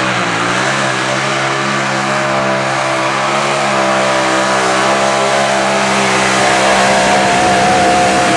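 Mini modified pulling tractor's racing engine running flat out under load as it drags a weight-transfer sled down the track, a steady high-revving howl that gets slightly louder toward the end.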